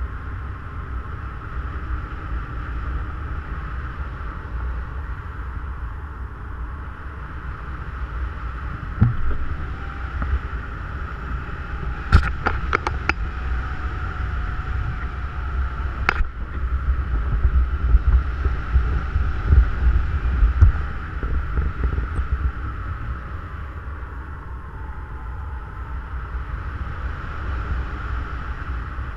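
Wind rushing over the microphone of a paraglider in flight, a steady rush with a deep rumble underneath. A few sharp clicks come about twelve seconds in and one more about sixteen seconds in.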